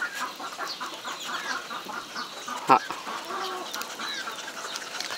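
Chickens clucking in a farmyard, with a run of short, repeated calls and one loud, short call about two and a half seconds in.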